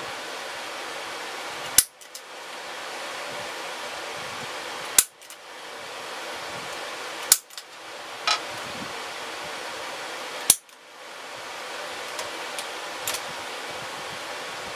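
Center punch marking hole locations in an aluminum plate: four sharp metallic snaps a few seconds apart, with a few lighter ticks in between, over a steady background hiss.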